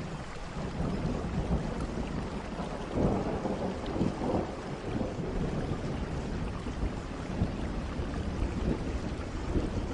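Steady rain with a long rolling rumble of thunder that starts right away and swells loudest about three to four seconds in.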